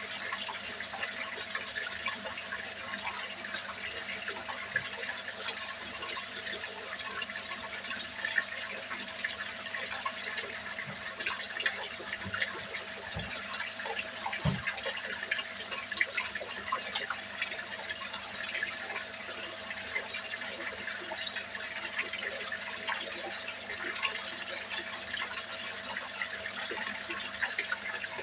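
Steady stream of water pouring from a pipe into a small fish pond, splashing and bubbling on the churning surface, with a faint steady hum underneath.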